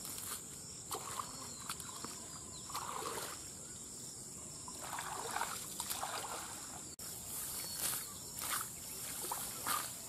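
Shallow muddy water sloshing and trickling, with wet grass and weeds rustling, as a person wading in a small canal handles the weeds around a net fish trap; a few separate splashy handling sounds over a steady high hiss.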